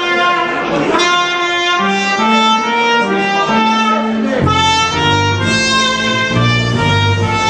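Live band with a saxophone and brass section playing a Christmas selection in a jazz style, the horns holding sustained chords. A bass line comes in about halfway through.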